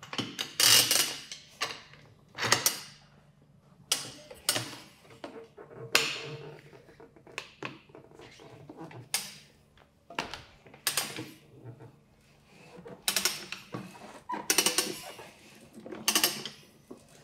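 Manual tire changer demounting the first bead of a stiff motorcycle touring tire from a spoked rim: an irregular series of short scrapes, clicks and knocks of tool, rubber and rim, with brief pauses between them.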